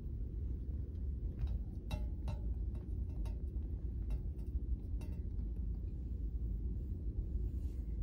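Steady low room hum with a few faint clicks.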